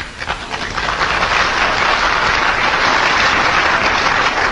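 Audience applauding, the clapping swelling up during the first second and then holding steady.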